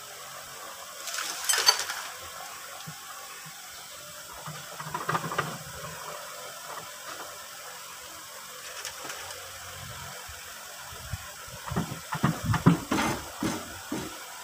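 A jack being worked under a tractor's rear axle housing: short bursts of metallic clicking and clanking, a brief one about a second in, another about five seconds in, and a quick run of sharp strikes about twelve seconds in, over a faint steady hiss.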